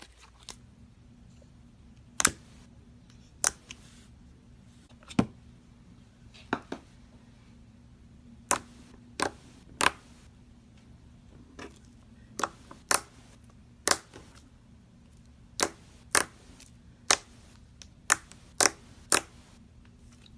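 Slime being squeezed and poked, giving about twenty sharp little pops and clicks at irregular intervals as air pockets burst, over a faint steady hum.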